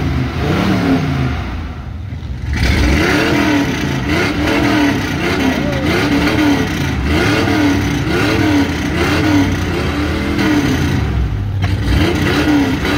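Engine of a lifted first-generation Ford Bronco revved over and over, its pitch climbing and dropping about once a second. The revs get louder and come more steadily from about two and a half seconds in.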